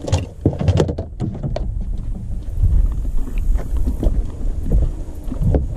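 Wind rumbling on the microphone, with a cluster of sharp clicks and knocks in the first second or so from handling a plastic tackle box, and a few softer knocks later.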